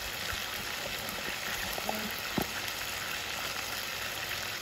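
Goat meat cubes sizzling steadily in hot oil in an aluminium pot as they sear and brown. There is a single light knock about two and a half seconds in.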